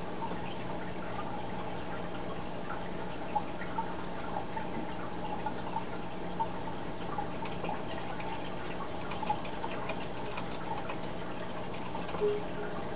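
Aquarium filter running: a steady low hum under trickling water, with scattered faint ticks and plinks. A short low tone sounds near the end.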